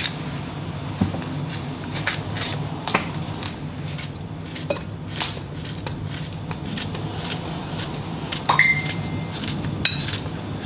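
A ceramic knife slicing a banana over a ceramic bowl: a string of short soft cuts and taps, with a brief ringing clink of the blade on the bowl about eight and a half seconds in. A steady low hum runs underneath.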